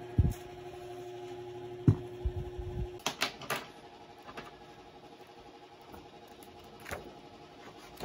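A few dull knocks on the desk, then paper and card being handled and folded open, with crisp rustles and clicks clustered about three seconds in and a few more later, over a faint steady hum.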